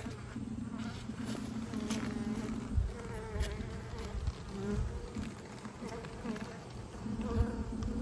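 Honeybee colony humming steadily inside an open hive, with a wavering higher tone coming and going over the hum, which the beekeeper takes for a new queen piping.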